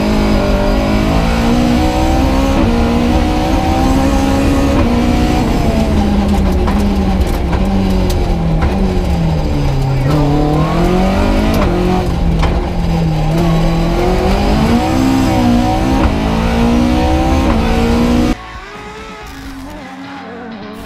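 Opel Kadett 2.0 Rallye's four-cylinder engine heard from inside the cabin at rally pace, revs climbing and falling through gear changes and braking for corners. It cuts off sharply about 18 seconds in, giving way to quieter sound.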